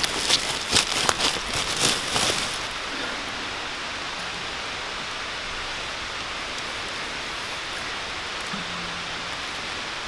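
Rustling and a quick run of clicks as camera gear and a long telephoto lens are handled, over about the first two and a half seconds. Then a steady, even hiss with nothing else in it.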